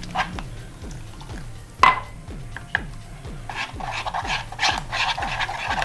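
A metal spoon stirs and scrapes wet flour, egg and water batter in a plastic bowl. The strokes come fast and scratchy and get busier in the second half, with a sharp clink about two seconds in.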